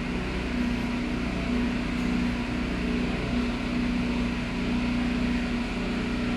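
Toyota Avalon's V6 engine running at a steady idle, an even hum with a low rumble. The engine has a misfire that the scan data traces to cylinder 3.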